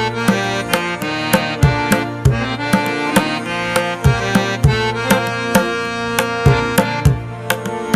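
Instrumental background music: a sustained melody over a steady hand-drum beat.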